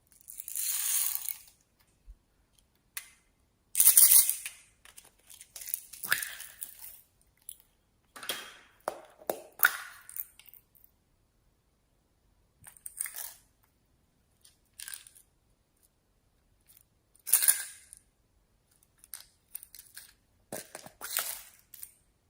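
Slime being squeezed and pressed by hand, giving separate bursts of crackling, crunching sounds with short silent pauses between them.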